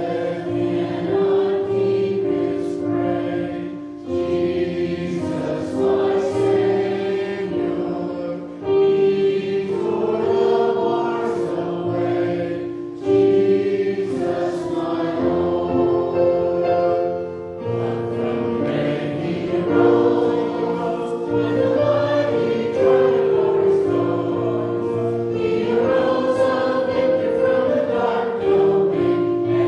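Choir singing a hymn with instrumental accompaniment, in sustained phrases.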